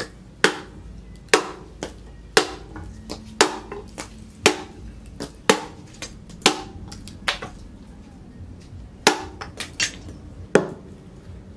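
A billhook forged from leaf-spring steel chopping into a wooden pole resting on a wooden block: sharp chops about once a second, with a short pause about two-thirds of the way through.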